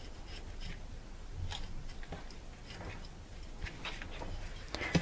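Kitchen knife slicing along the backbone of a whole whitefish to start a fillet, making faint, irregular small clicks and scrapes as the blade works through skin and flesh.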